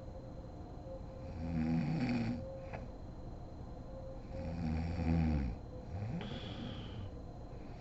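A sleeping woman snoring: two long snores about three seconds apart, then near the end a shorter breath with a high whistling tone.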